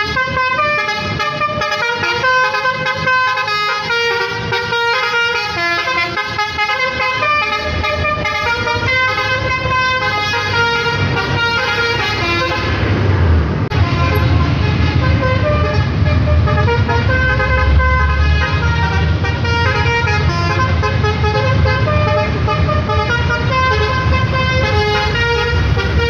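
Telolet (Basuri) multi-tone bus horn playing a melody of held notes that step from pitch to pitch, without a break. About halfway through, the low rumble of the bus's diesel engine rises beneath it as the bus pulls away.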